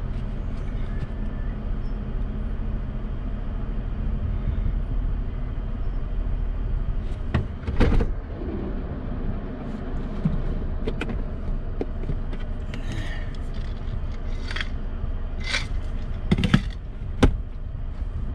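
Off-road vehicle's engine idling while stopped on the trail, a steady low rumble. Scattered clicks and knocks come in over the second half, the loudest about eight seconds in and two sharp ones near the end.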